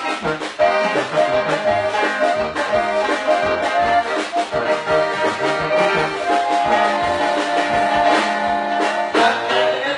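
Band music with held melodic notes over a steady, regular bass beat.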